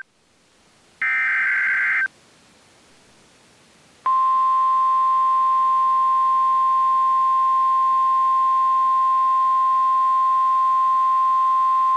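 NOAA Weather Radio emergency alert signalling. About a second in comes a one-second burst of screechy digital SAME data tones; from about four seconds in, the steady 1050 Hz warning alarm tone sounds loud and unbroken, announcing a new warning.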